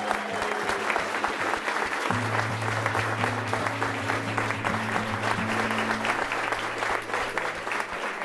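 Wedding guests applauding as the newly married couple walk back down the aisle, with music underneath; a low held bass line comes in about two seconds in.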